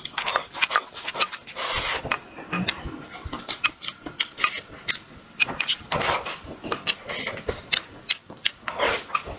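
Close-up eating sounds: wooden chopsticks clicking and scraping against a ceramic rice bowl as rice and egg are shovelled in, with chewing and mouth clicks. Many short sharp clicks come at an uneven pace.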